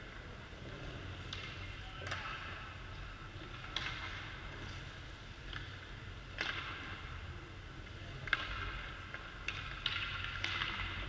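Ice hockey practice sounds in an echoing rink: a string of irregular sharp knocks from sticks hitting pucks, with skate blades scraping the ice, over a steady low rumble.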